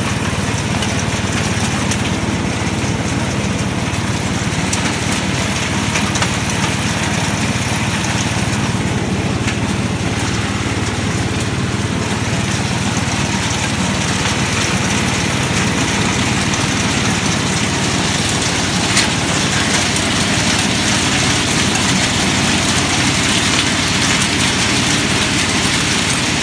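Small engine of a motorized hazelnut collecting machine running steadily at an even speed, with one brief click about two-thirds of the way through.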